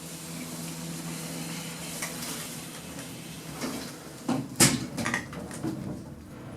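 Passenger lift doors closing: a low steady hum for the first couple of seconds, then a series of clunks and knocks, the loudest about four and a half seconds in, as the doors shut and the lift gets ready to move.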